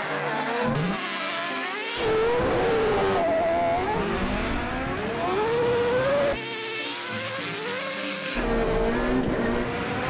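Racing engines of a KTM RC16 MotoGP bike and several race cars, among them a Formula 1 car, revving at a drag-race start line, their pitch rising and falling in repeated blips. The sound changes abruptly about two seconds in and again around six and eight seconds.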